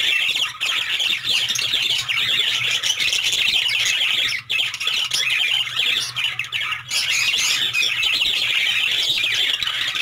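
Many small cage birds in a breeding aviary chirping and calling all at once, a dense, unbroken chatter of overlapping high calls.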